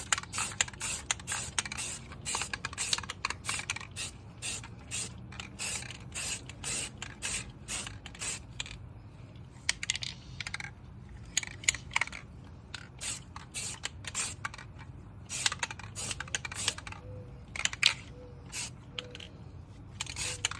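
Aerosol spray-paint can spraying in a rapid string of short hissing bursts, over a steady low rumble.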